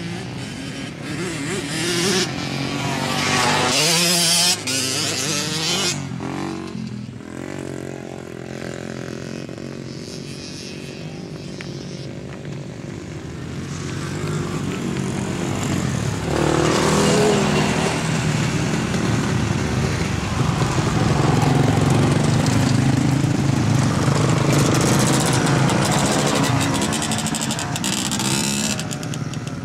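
Small mini bike motorcycle engines revving and accelerating, with rising pitch in the first few seconds. After a lull the engines grow louder again from about halfway in and stay strongest near the end as a bike comes close.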